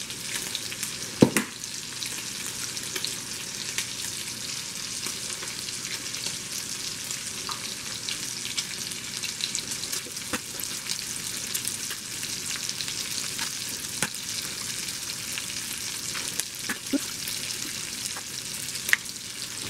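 Chopped bacon frying in a pan: a steady crackling sizzle with scattered pops as it cooks toward crisp. A sharp knock about a second in stands out above it.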